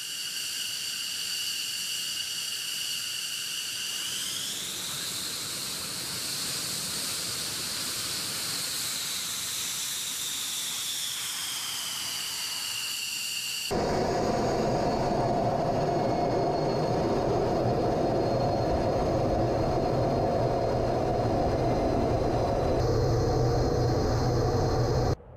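F-15C Eagle's twin turbofan jet engines running on the ramp with a high whine, which rises in pitch about four seconds in and sinks back again past the middle. An abrupt cut leads to a louder, steady jet engine rumble and rush heard from the cockpit on the runway.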